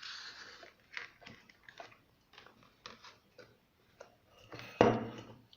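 Small clicks and rustling from handling plastic desk-lamp parts while threading its wires into place, with a brief scrape at the start and a louder knock near the end.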